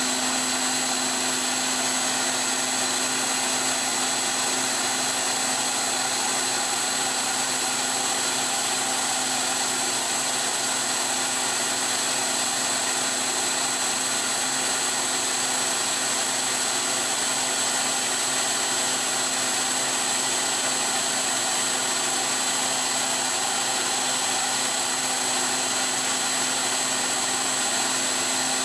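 Tool post grinder running, its wheel grinding dry on a steel R8 taper turning between centres in the lathe: a steady high whine over a constant grinding hiss. This is a trial pass without coolant that wears the marker blue off the taper to show where the wheel is cutting.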